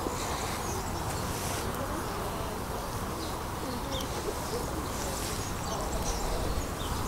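Steady outdoor background hiss with a few faint, short, high bird chirps.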